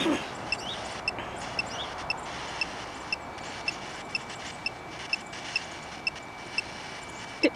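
Short electronic blips about twice a second from a handheld ghost-hunting device, over a faint steady high tone and a background hiss.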